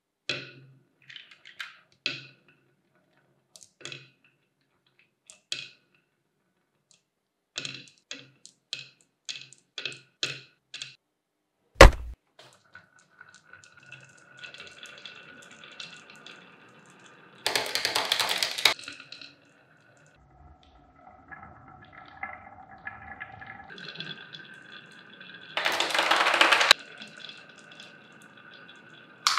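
Glass marbles on a wooden wave-shaped marble run: scattered clicks and knocks at first, one sharp loud knock about twelve seconds in, then a steady rolling rumble as many marbles run down the wooden track. Two louder clattering bursts, each about a second long, come as marbles tumble into a toy tractor trailer.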